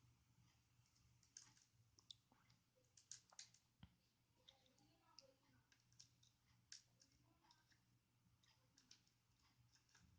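Faint, scattered small clicks and ticks of a small screwdriver and screws against the plastic underside of a ThinkPad X220 as the screws are put back in, over a faint steady low hum.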